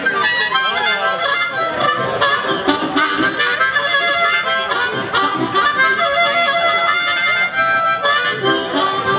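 Amplified blues harmonica played cupped against a vocal microphone, with a live electric band of guitar, drums and keyboards playing behind it.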